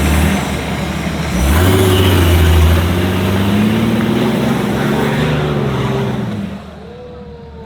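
Off-road 4x4 engine revving hard under load, rising in pitch about a second and a half in, then dropping away about six and a half seconds in.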